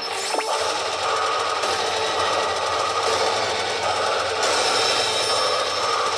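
Pachinko machine gameplay sounds: a dense, steady rapid clatter with an electronic tone underneath.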